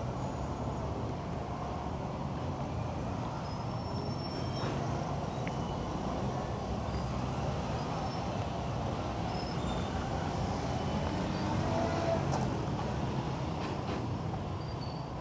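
Road traffic of motorcycle taxis and cars passing, a steady mix of small engines running, slightly louder about twelve seconds in.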